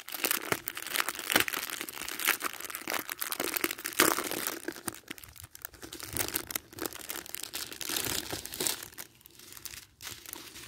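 Small plastic bags of diamond painting drills being handled and sorted, crinkling irregularly, with a sharper crackle about four seconds in.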